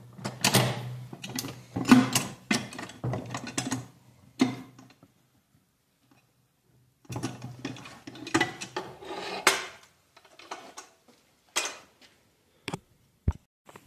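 Metal clinks, scrapes and clunks as the top cover of a Ford Ranger's T5 five-speed manual transmission is rocked loose and lifted off the gearcase. The sounds come in bunches, with a silent pause of about two seconds near the middle and a few single sharp clicks near the end.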